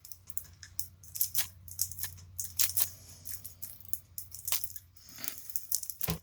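Plastic wrapping crinkling and cards clicking in quick, irregular strokes as a wrapped stack of trading cards is handled and pulled at, the wrap not yet giving way.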